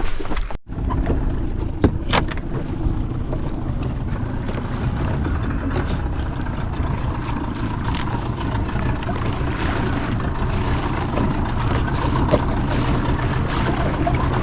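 A boat's engine running steadily under way, a low even hum with wind and water noise over it, after a brief cut in the sound about half a second in.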